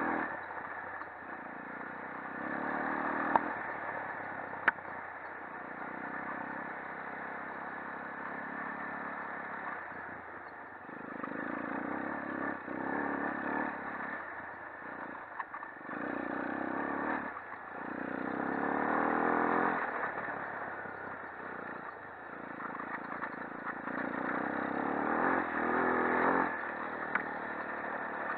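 Shineray 250 quad ATV engine revving up and dropping back every few seconds as it is ridden along a bumpy dirt trail, with clattering over the ground and two sharp knocks a few seconds in.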